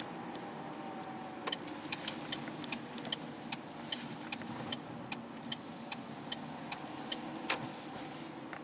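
Car running, heard from inside the cabin, with a steady engine and road hum. A turn indicator ticks evenly about two to three times a second while the car turns, and stops a little before the end.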